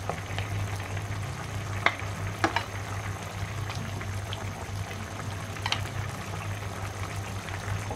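Bottle gourd and snakehead fish curry simmering and sizzling in a pan while a wooden spatula stirs it, with a few sharp knocks of the spatula against the pan about two, two and a half and six seconds in. A steady low hum runs underneath.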